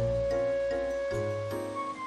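Background music: soft melodic instrumental with held notes changing every half second or so.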